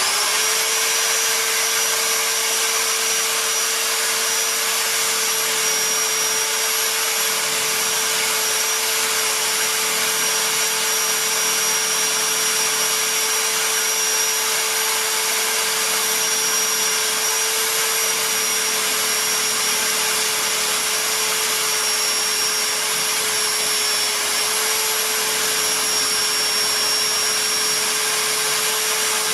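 Motor-driven wire brush wheel switched on and running with a steady whine, used to scrub the scale off freshly tempered railroad-spike knife blades.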